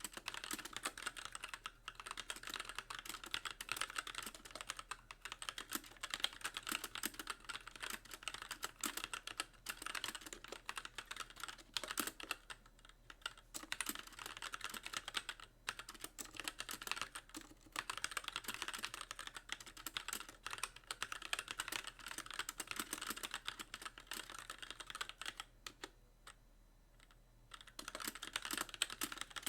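Continuous typing on a Magicforce mechanical keyboard with light linear Gateron Clear switches and stock keycaps, the keys bottoming out on every press: a steady stream of clacks with brief pauses, the longest about two seconds near the end.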